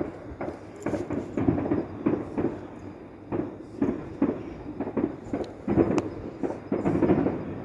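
Distant fireworks going off in an irregular string of muffled booms and pops, about one or two a second, over a low rumble.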